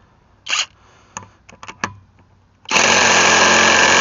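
VTEK V6309R cordless impact wrench hammering on a car lug nut, starting about two-thirds of the way in after a few small clicks and knocks as the socket is fitted. The nut is too tight for the wrench to break loose.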